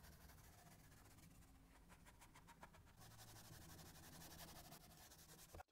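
Near silence: faint room tone with a low steady hum and a few faint ticks.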